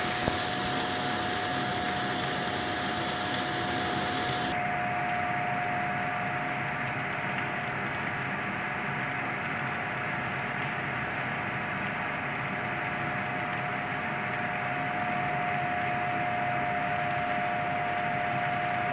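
Food sizzling on a flat griddle, over a steady hum with a constant whine. The sizzling stops about four and a half seconds in, leaving the hum and a low hiss.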